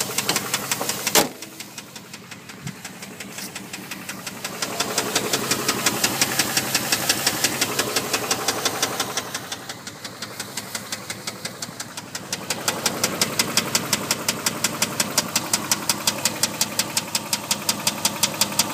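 Dodge Durango 4.7-litre V8 running with a fast, evenly spaced knock: rod knock from cylinder 2. A sharp click comes about a second in. The knocking is fainter for a few seconds after that, louder again, and dips once more around the middle.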